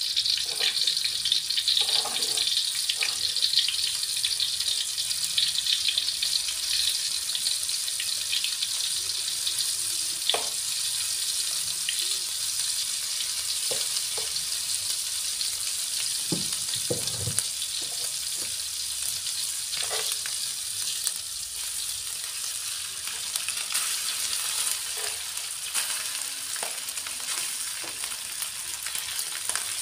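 Contents of a wok frying in hot oil: a steady high sizzle, a little stronger in the first few seconds, with a few scattered knocks and clinks.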